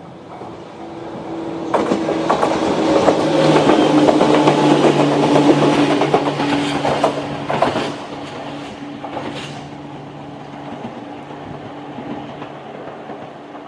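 Toyama Chiho Railway 14760-series electric train passing over a level crossing, its wheels clattering over the rail joints. It swells about two seconds in, is loudest for a few seconds, then drops away about eight seconds in. A steady tone, likely the crossing's electronic warning bell (JR standard tone), carries on underneath.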